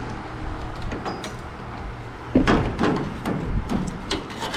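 Knocks, clicks and rattling from a work light being handled and set in place, with a sharper knock about two and a half seconds in followed by a run of clattering, over a steady low hum.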